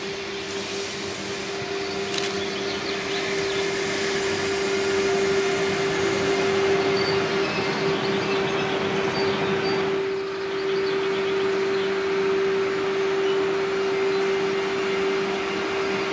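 A train running past on the line: its rolling noise builds over the first few seconds and then holds, with a steady hum throughout.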